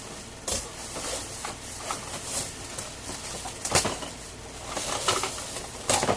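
Plastic packaging wrap being pulled off by hand, rustling and crinkling, with a few sharp crackles, the loudest about four seconds in and again near the end.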